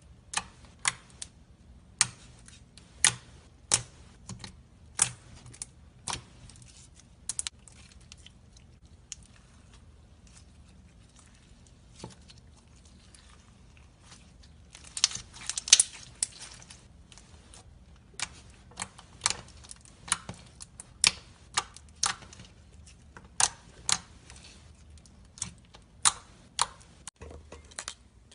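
Slime being handled, making sharp, irregular clicks and pops, with a quick flurry of them about halfway through.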